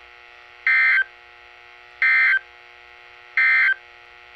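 NOAA Weather Radio SAME end-of-message data bursts: three short, shrill digital warbles about 1.3 seconds apart over a steady radio hum, marking the end of the broadcast alert.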